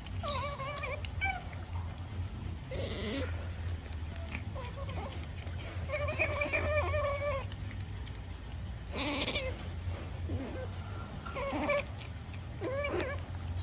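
Pet otter making its 'nom-nom' noise: a series of about five whiny, wavering squeaks, each up to a second and a half long, over a steady low hum.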